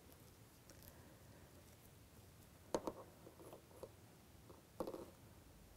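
Faint clicks and light knocks from a small nail polish bottle and its plastic cap being handled and twisted open: a cluster of clicks about three seconds in and another near the end, quiet in between.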